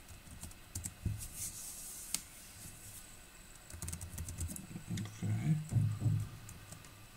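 Typing on a computer keyboard: irregular key clicks, busiest about four to six seconds in.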